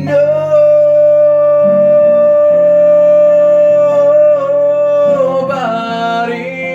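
Song with acoustic guitar: a singer holds one long, steady note for about five seconds over sustained guitar chords, then the melody moves on near the end.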